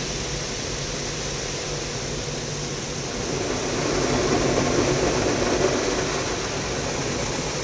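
Automatic car wash machinery running: a steady rushing noise heard from inside the car's closed cabin, swelling louder about halfway through and easing off again.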